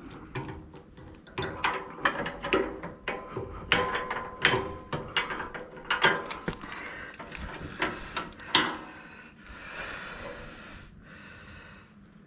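Steel-on-steel clinks and knocks as the aerator's hitch bar is worked into the mower's hitch plate by hand: an irregular run of sharp clicks and clanks, the loudest about four, six and eight and a half seconds in, with a short metallic ring near four seconds, then quieter handling.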